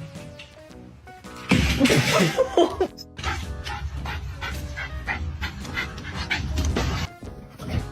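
A dog vocalizing for about a second and a half, starting about a second and a half in, over background music with a steady beat.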